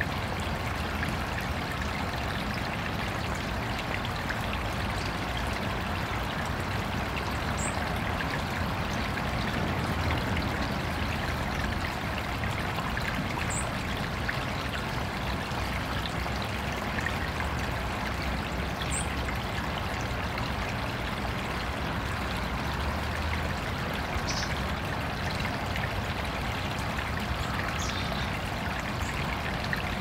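Water of a small artificial backyard stream trickling and pouring steadily, with a few brief high bird chirps now and then.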